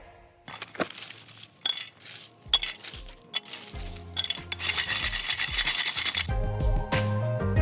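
Scrubbing the inside of a burnt metal cooking pot by hand: several short, irregular scraping strokes, then about a second and a half of steady, hard scrubbing. Background music comes back in near the end.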